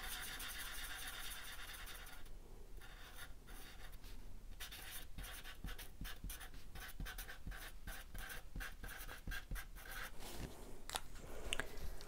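Sharpie fine-point permanent marker's felt tip scratching on paper: about two seconds of steady scribbling as a round colour swatch is filled in, then after a short pause a run of quick, short strokes as a word is handwritten. A couple of sharp clicks near the end.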